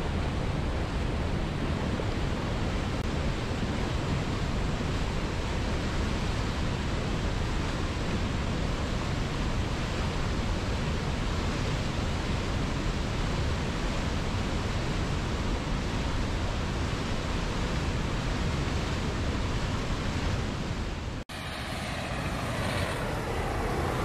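Steady rushing of a whitewater mountain river. It breaks off for an instant about 21 seconds in, and a different outdoor background follows.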